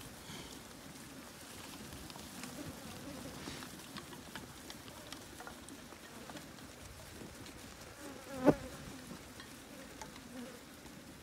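A flock of wether lambs milling in a dirt yard: a steady buzzing of insects over the faint patter of hooves. About eight and a half seconds in, one sudden sharp knock stands out as the loudest sound.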